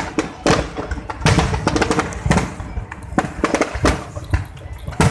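Aerial fireworks shells bursting overhead: an irregular string of sharp bangs and crackles, several a second at times.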